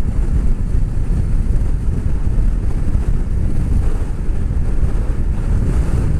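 Steady wind rumble on a motorcycle rider's microphone at road speed, mixed with the bike's running noise.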